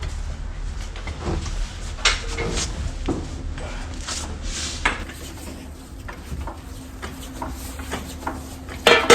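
Metal tools and parts clinking and clanking as they are handled during a car teardown, with a louder clank near the end, over a steady low hum.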